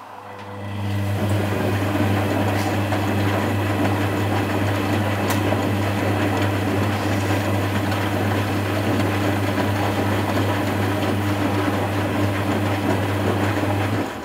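Constructa Contura front-loading washing machine giving out a steady electric hum over a hiss. It builds up in the first second or so and cuts off suddenly near the end.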